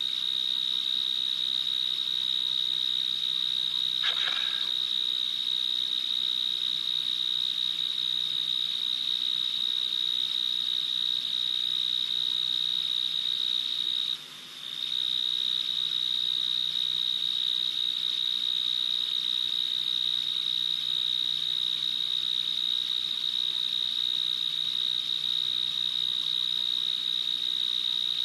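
A cricket trilling in one steady high-pitched note, stopping for under a second about halfway through, then carrying on. A brief faint sound comes about four seconds in.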